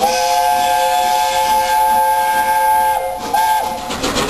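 Whistle of the Peppercorn A1 steam locomotive 60163 Tornado, several notes sounding together as a chime: one long blast of about three seconds, then a short toot.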